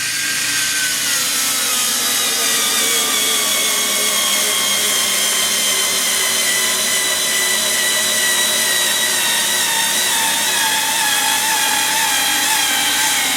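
Skil 4-volt cordless electric screwdriver's motor whining steadily as it drives a finishing screw into a wooden landscape timber. Its pitch sags gradually as the motor labours under the load, a sign the little tool is struggling with the screw, though it gets it through.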